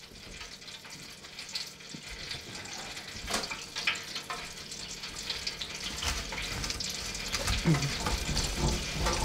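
Chicken frying in hot oil in a deep fryer, a steady sizzle with fine crackling that grows louder about six seconds in. A couple of sharp clicks come around three to four seconds in.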